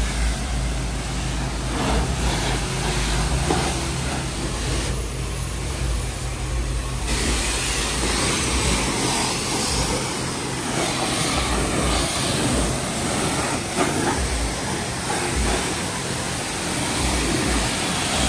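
Self-serve car-wash high-pressure wand spraying water against a pickup truck's body and tyres: a steady hiss with a low mechanical hum underneath that fades out about seven seconds in.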